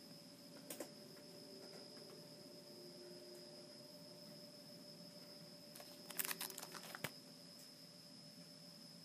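Quiet room tone with a steady faint high whine, broken by a single click about a second in and a short run of sharp crackling clicks around six seconds in: a binder page of plastic card sleeves being handled and turned.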